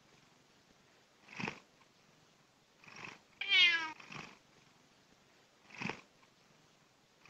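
A domestic cat meowing once, a single falling meow about three and a half seconds in, between short soft breathy puffs every second or two.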